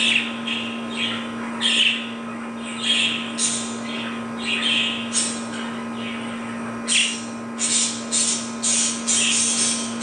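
Budgerigars chirping in a string of short calls, coming faster and running together in the last few seconds, over a steady low hum.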